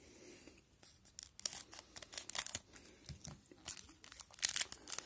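A Panini Zenith hockey hobby pack's wrapper being torn open and crinkled in the hands. It gives a run of sharp, irregular crackles starting about a second in.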